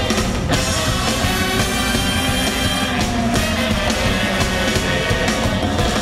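Live band music: saxophones playing held lines over a drum kit.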